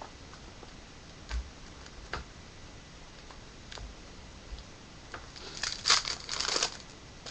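Trading-card packaging being handled: a few light taps, then a short burst of crinkling and tearing about six seconds in, as a pack or box is opened.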